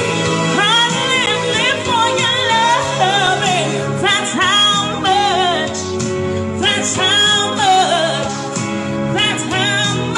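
A woman singing a song over instrumental backing, her voice sliding and wavering between phrases.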